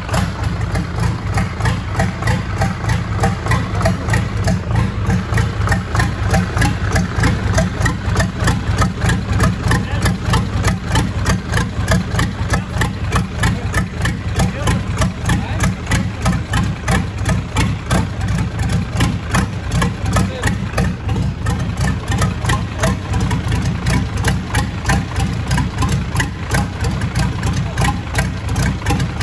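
Freshly overhauled MAN D0826 straight-six diesel running steadily on an engine stand, an even pulsing beat with no change in speed, during its running-in after a full rebuild with new pistons, rings and cylinder liners.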